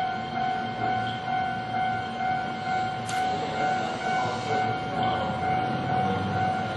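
Japanese level-crossing electronic warning bell ringing continuously, a steady tone that pulses evenly in level, with a low rumble underneath and a brief click about 3 seconds in.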